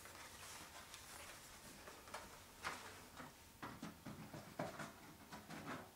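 Faint handling of cardboard-backed blister-carded action figures: light rustling, then several short taps and clicks as the cards are moved and set on a shelf.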